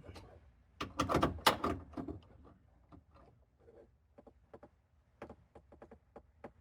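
Torque wrench ratcheting as it tightens the mounting bolts of a seat belt retractor: a dense run of loud clicks about a second in, then sparser single clicks.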